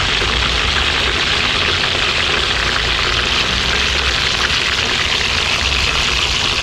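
Boiled pork belly deep-frying in hot oil: a loud, steady sizzle.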